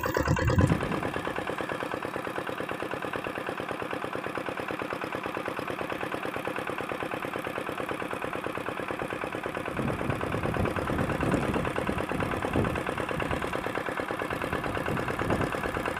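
An engine running steadily at an even speed, with a fast regular pulse.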